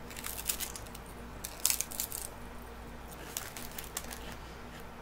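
A crisp chip being bitten and chewed close to the microphone: dry crunches in bursts, the loudest about one and a half seconds in, with a fainter run of crunches near the end.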